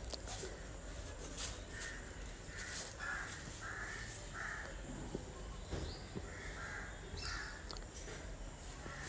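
Crows cawing repeatedly, short harsh calls in runs of two or three, with a few sharp clicks or knocks between them.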